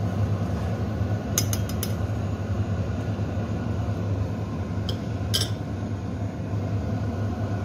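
A metal utensil clinking against cookware: a quick run of about four clinks about a second and a half in, and two more about five seconds in, over a steady low hum.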